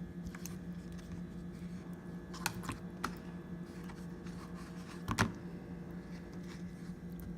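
Chicken wings being pressed and turned in crushed corn flakes: scattered dry crackles and taps, the loudest about five seconds in, over a steady low hum.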